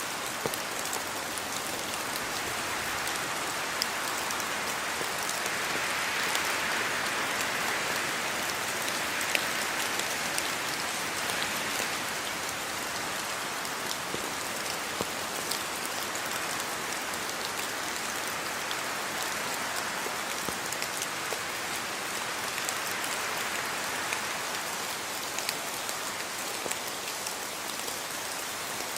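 Steady rainfall: a constant hiss of rain with many individual drops ticking on a hard surface, swelling a little in intensity now and then.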